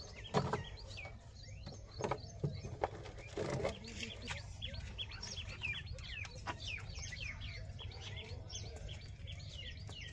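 Small birds chirping over and over in short, quick calls. In the first few seconds there are a few knocks and rustles as a plastic jar of biscuits is handled.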